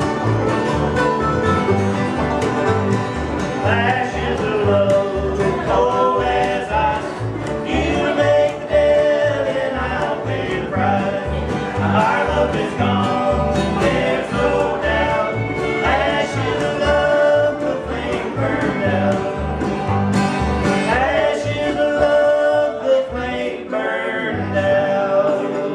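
A live acoustic bluegrass band of mandolin, acoustic guitar, banjo, upright bass and fiddle plays a song. An instrumental break gives way about four seconds in to a man and a woman singing in harmony over the band.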